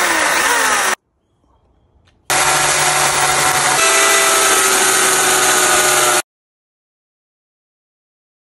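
A power tool running loud with a steady whine, heard in two stretches: about a second at the start, then from about two seconds in until it cuts off about six seconds in.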